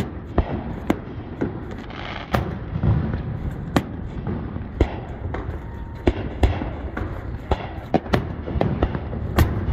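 Aerial fireworks shells bursting one after another, a dozen or more sharp bangs at irregular intervals over a steady low rumble.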